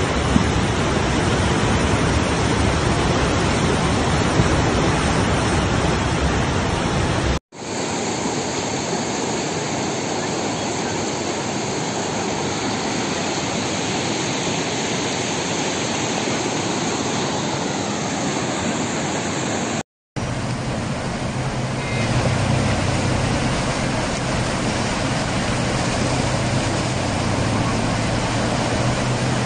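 Floodwater rushing through a wadi: a loud, steady noise of water. It drops out abruptly twice for an instant, and a low steady hum joins it in the last several seconds.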